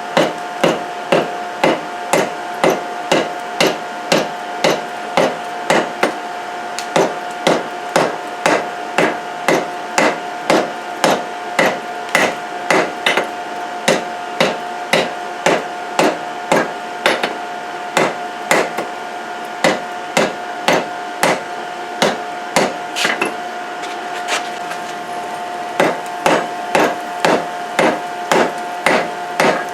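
Hand hammer striking a hot billet of layered chainsaw chain on an anvil, about two blows a second in runs with short pauses. A steady two-note hum runs underneath.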